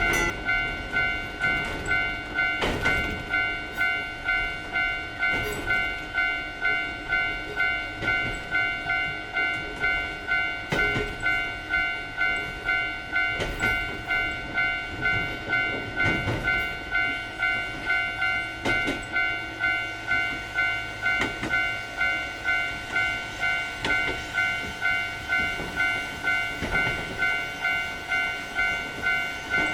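Japanese railroad crossing (fumikiri) warning bell ringing its steady 'kan-kan' at about one and a half strikes a second. Under it a train runs past, rumbling, with a sharp wheel clack over the rail joints every couple of seconds.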